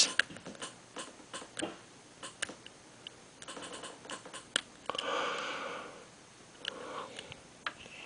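Hook pick and tension wrench single-pin picking the five-pin tumbler lock of a vintage Master Lock No. 21 padlock: scattered light metallic clicks and scrapes as the pins are worked, with a soft breath through the nose about five seconds in.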